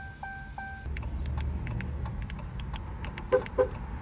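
Car warning chime beeping about three times a second, stopping about a second in; then a low steady hum with scattered light clicks and two short, louder blips near the end, while the car's modules are being read for key programming.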